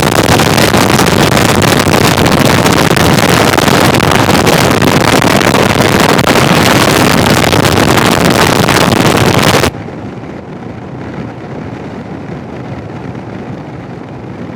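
Loud wind noise on the Sena 10C's external microphone while riding. It switches on suddenly and cuts off abruptly about ten seconds in, leaving much quieter riding noise. This is what the recording picks up when a Garmin sat-nav instruction disables the helmet microphone and leaves the Sena's external microphone fully open.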